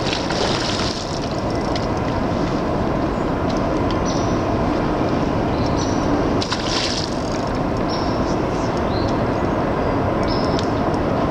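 Steady rushing of a creek's running water, with brief splashes near the start and about six and a half seconds in as a hooked steelhead thrashes at the surface.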